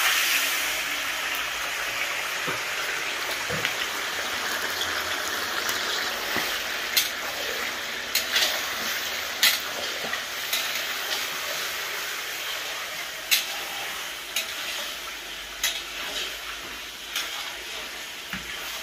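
Raw chicken pieces sizzling as they go into hot oil in a large metal karahi, the frying hiss starting suddenly and easing slowly. A long metal spatula stirs them, clinking sharply against the pan several times in the second half.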